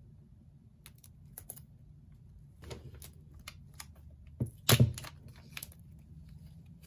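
Fingers tapping and sliding on a shrink-wrapped iPhone 12 cardboard box as it is handled and turned over: scattered light clicks and crinkles, with one louder knock about two-thirds of the way through.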